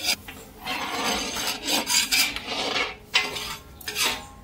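A big pot of cook-up rice being stirred, with several scraping strokes along the bottom of the pot where the rice has begun to catch and stick.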